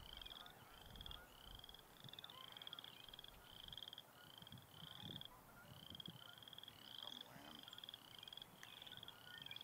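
Faint chorus of frogs giving short, rising trills about twice a second, the calls of several frogs overlapping.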